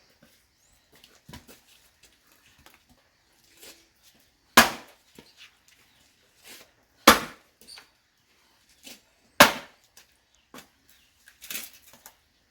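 Firewood being split with chopping blows: three heavy strikes about two and a half seconds apart, with lighter knocks and wood clatter between them.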